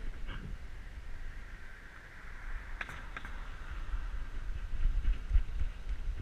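A car driving past on the road, its noise swelling and then easing, over the low rumble and rubbing of a harness-mounted camera on a walking dog. A couple of sharp clicks come about three seconds in.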